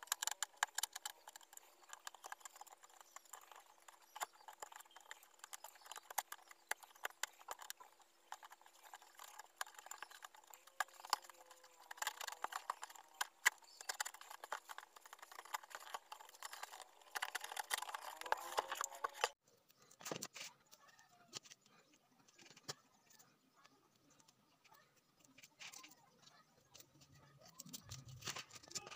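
Utility knife sawing through cardboard: a dense run of small crackling clicks as the blade works along the box's edge. A little past halfway it stops abruptly, leaving only scattered light taps and handling.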